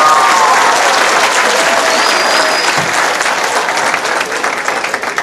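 Audience applauding, with voices calling out over the clapping at first and a short high whistle about two seconds in; the applause dies down near the end.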